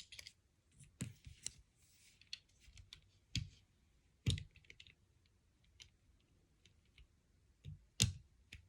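Lego plastic pieces clicking and clacking as they are picked up, handled and pressed together, in scattered sharp clicks at irregular intervals, with a brief soft rustle partway through.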